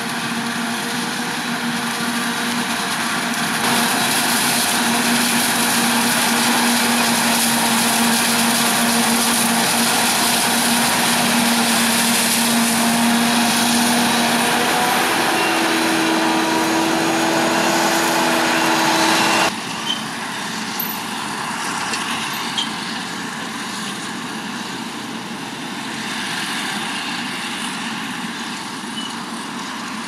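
Claas Jaguar forage harvester and John Deere tractors running steadily under load as maize is chopped and blown into a trailer running alongside, a loud, even machine noise with a held engine hum. About twenty seconds in it drops abruptly and carries on quieter.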